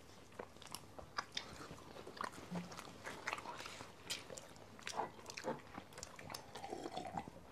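Faint chewing and biting of pizza, picked up by close microphones: a scatter of small, irregular mouth clicks and soft crunches.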